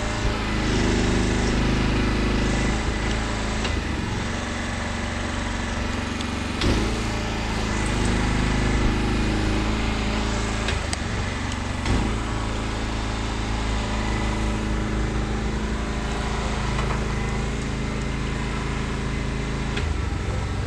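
Small engine running steadily, its pitch and load stepping up and down several times as the machine's controls are worked, with a few short knocks.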